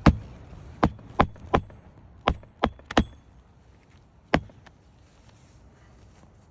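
Hammer striking roofing nails into a replacement asphalt shingle: eight sharp blows in irregular groups over about four seconds, a few with a short metallic ring.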